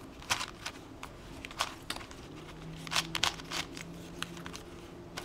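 Stickerless plastic 5x5 speed cube being turned by hand: layers rotating with quick, irregular plastic clicks and clacks.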